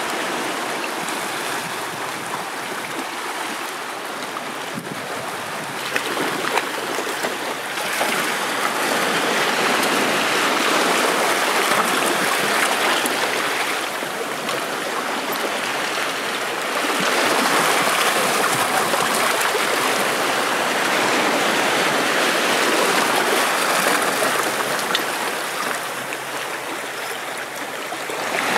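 Seawater washing and lapping over shoreline rocks and into a rock pool, a steady rushing wash that swells and eases every few seconds, with a few brief knocks about six seconds in.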